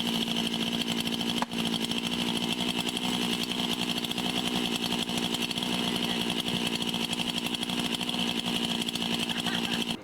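Chainsaw running steadily at high speed, cutting into a tree trunk, most likely the felling notch. There is a brief dip about one and a half seconds in, and it cuts off suddenly at the end.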